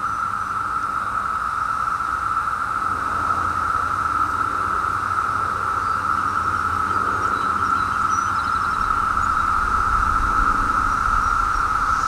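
Chorus of Brood X periodical cicadas (17-year cicadas): many males calling at once in a loud, steady, unbroken drone.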